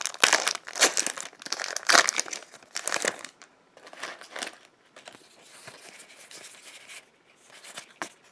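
Foil wrapper of a Magic: The Gathering booster pack crinkling in loud bursts as it is torn open and emptied, for about the first three seconds. Then comes a softer rustle of the cards being handled and shuffled.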